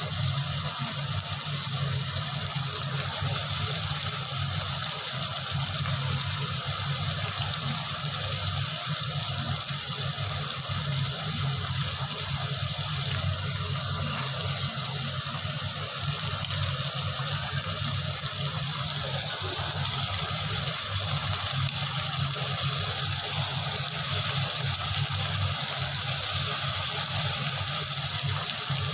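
Steady rushing of water, unbroken and even in level.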